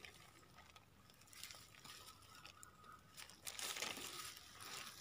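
Faint crinkling of a thin plastic bag as it is squeezed and handled over a bowl, louder for a second or so near the end.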